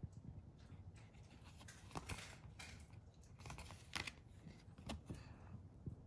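Faint clicks and light rustles of paper baseball cards being handled between the fingers, with a few sharper ticks spread through.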